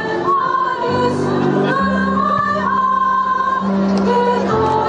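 A choir singing held chords with instrumental accompaniment over a steady bass line.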